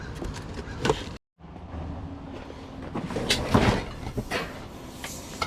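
Scattered knocks and clatters of hard objects being handled and shifted, the loudest a cluster of several knocks about three seconds in. The sound cuts out completely for a moment just after one second in.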